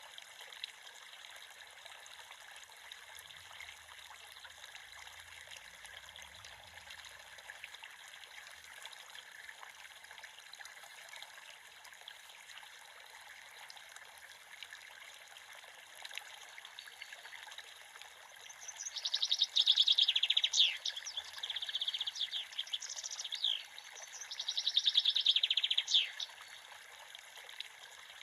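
Creek water trickling steadily. About two-thirds of the way in a bird sings loudly nearby for several seconds in two quick-trilled phrases, much louder than the water.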